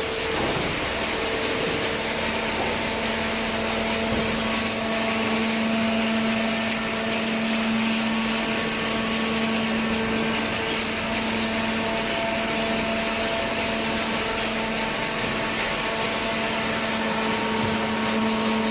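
A motor running steadily, a constant hum with a whine over machine noise.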